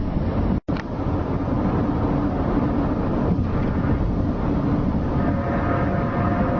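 A steady low rumbling drone with faint held tones over it, one of the unexplained 'strange sounds' recordings; it cuts out for an instant about half a second in.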